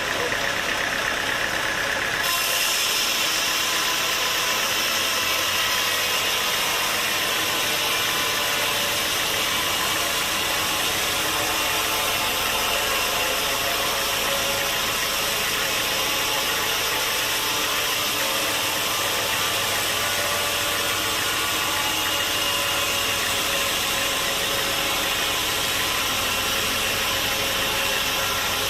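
Sawmill machinery running steadily, a continuous engine-like mechanical noise; its tone changes abruptly about two seconds in, then holds steady.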